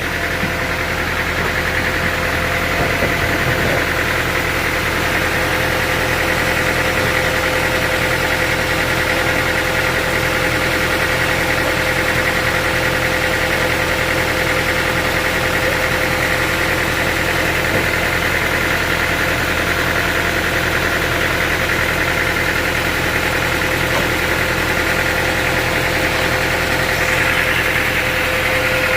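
Engine-driven sawmill machinery running steadily: an even engine drone with a constant high whine.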